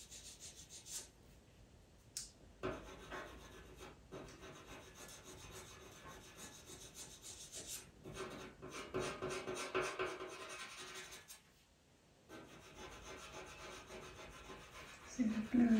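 Blue pastel pencil rubbing and scratching across Pastelmat pastel paper in short, repeated hair strokes: a dry, faint rasp that stops briefly about three quarters of the way through.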